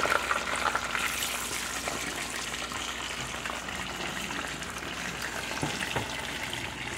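Battered chicken deep-frying in a pot of hot oil: a steady sizzle full of fine crackles.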